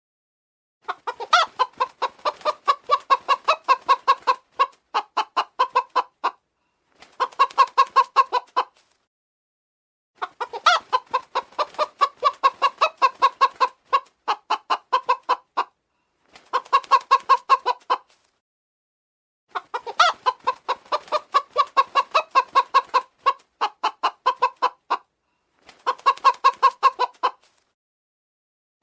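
Chickens clucking in runs of rapid clucks, about six a second, broken by pauses of complete silence; the same pattern of runs repeats three times.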